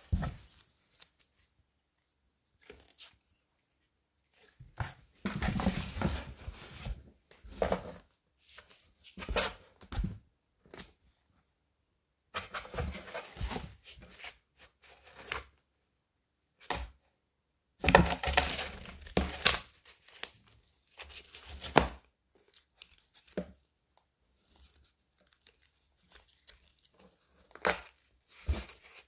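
Cat tearing and chewing at a cardboard box, heard as irregular bouts of ripping and crinkling cardboard, each lasting from under a second to about three seconds, with short quiet gaps between them.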